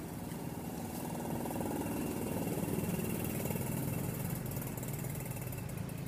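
An engine running steadily. It grows a little louder over the first few seconds, then eases off near the end.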